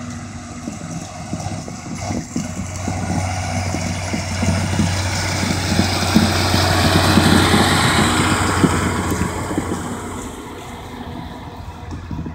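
John Deere tractor running under load as it pulls a three-axle silage trailer past over maize stubble, with a steady low engine hum and trailer rattle. It grows louder to a peak about midway and then fades as it goes by.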